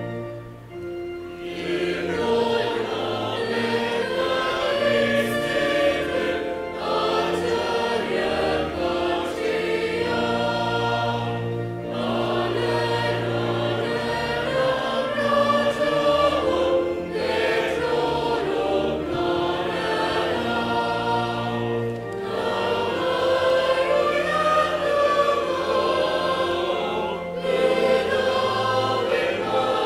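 Church choir singing a hymn, many voices together, over long held low notes of accompaniment.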